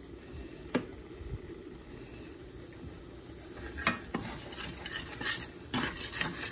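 A utensil stirring and scraping scrambled eggs and shredded cheese in a stainless steel pot, with sharp clicks of the utensil against the pot; the stirring gets busier after about four seconds. The eggs sizzle softly in the hot sausage grease underneath.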